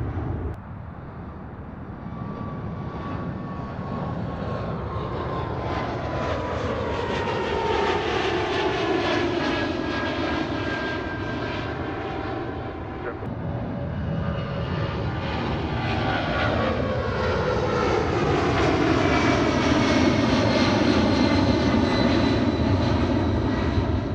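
Twin-engine jet airliners climbing out after takeoff, heard one after the other. Each is a jet roar with whining engine tones that slide down in pitch as it goes by. The second pass builds to the loudest point in the last few seconds.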